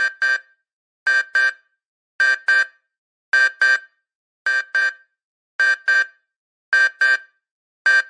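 Alarm clock beeping: pairs of short, high electronic beeps, repeating about once a second.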